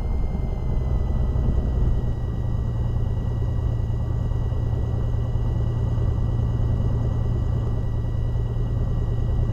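Light aircraft's piston engine and propeller running steadily, heard as a constant low drone in the cockpit, with a thin steady high whine above it.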